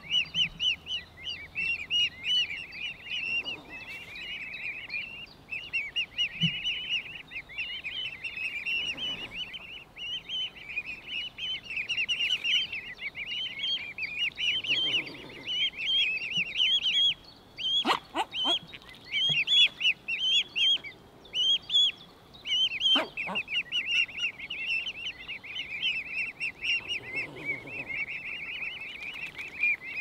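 Mute swan cygnets, about 20 days old, cheeping without a break in a dense chorus of short, high peeps. A few sharp clicks come in the second half.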